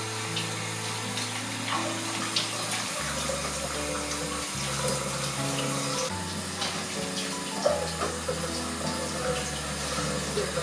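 Tap water running and splashing onto a plate of peeled onions, a tomato and a green chilli as they are rinsed by hand.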